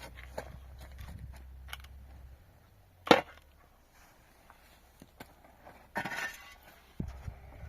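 Scattered light knocks, then one loud sharp strike about three seconds in, and a short scraping rustle about six seconds in.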